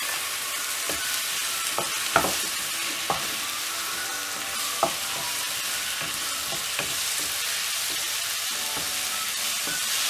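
Onions and freshly added chopped tomato sizzling in hot oil in a non-stick kadai, stirred with a wooden spatula. The spatula knocks and scrapes against the pan several times at irregular intervals, the loudest knock about two seconds in.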